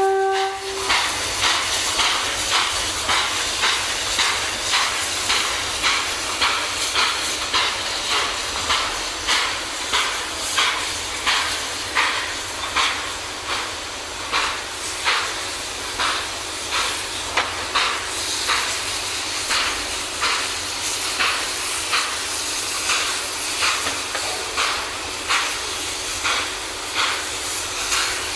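Steam locomotive's whistle ends in a short blast, then its exhaust chuffs evenly, about one and a half beats a second, over a steady hiss of steam as it works away.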